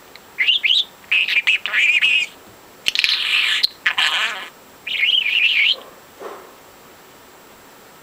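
Pet budgerigar chattering in a string of high, warbling bursts, which stop about six seconds in.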